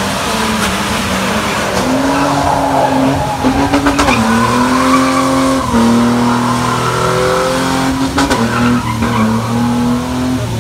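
Ford Mustang GT's V8 revving hard and held high while its rear tyres squeal and skid through a drift, the engine note jumping up and down every second or two as the throttle is worked.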